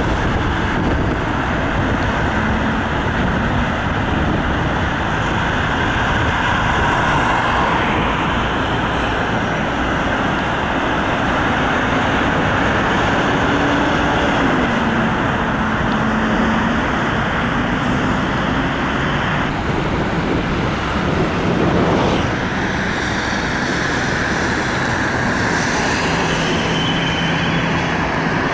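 Steady heavy road traffic: lorries' diesel engines and tyre noise, with one engine note sliding down in pitch around the middle. A brief sharp knock comes about three quarters of the way through.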